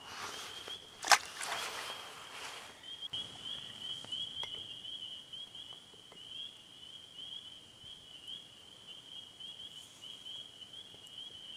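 A chorus of frogs trilling steadily in a high pitch. About a second in, a sharp knock comes with a short splashing rush, as a small walleye is let go off the pier.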